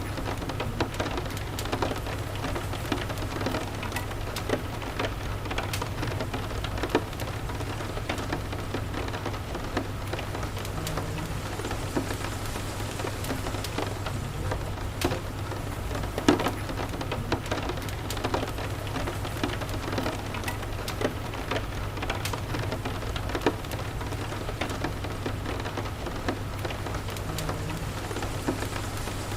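Steady rain with a crackling wood fire: an even rain hiss over a low steady rumble, with frequent irregular sharp pops, one louder pop about halfway through.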